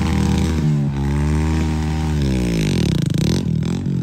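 Heavy diesel engine running under throttle. Its speed sags gradually over a couple of seconds, then picks up again near the end.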